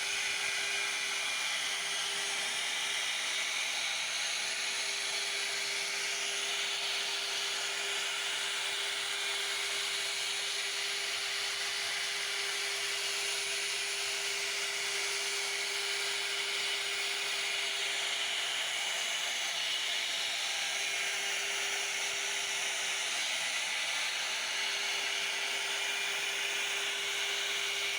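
CNC router spindle running as it cuts wood, a steady whine over a constant hiss of cutting.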